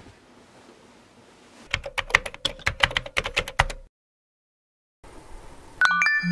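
Typing on a computer keyboard, a quick run of keystrokes for about two seconds. Near the end comes a short electronic chime of a few pitched tones.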